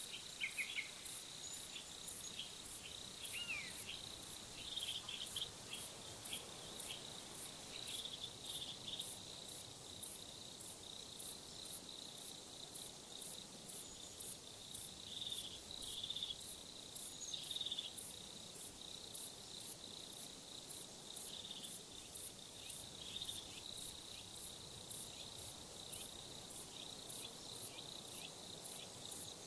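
Crickets chirping in an even rhythm of about two high chirps a second, over a continuous high insect trill. A few short bird calls come in during the first few seconds.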